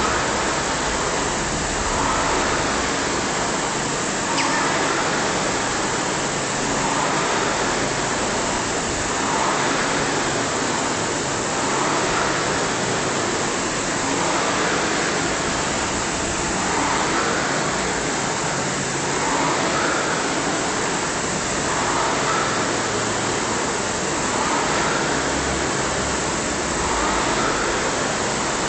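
Rowing ergometer's flywheel fan whooshing steadily, swelling with each drive stroke about every two and a half seconds, rowed hard through a 500 m sprint.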